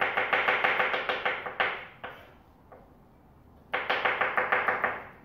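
Kitchen knife rapidly chopping garlic on a wooden cutting board: two quick runs of strokes, about eight a second, with a pause of about two seconds between.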